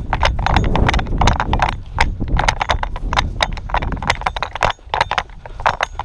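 Quick, irregular footsteps of an airsoft player on the move, a rapid series of thuds and clicks over a low rumble that fades about two-thirds of the way in.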